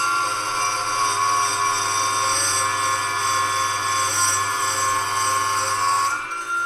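Proxxon chop saw cutting through brass rod stock: the motor's steady whine drops a little in pitch as the blade bites, holds under load, then rises again near the end as the blade cuts through.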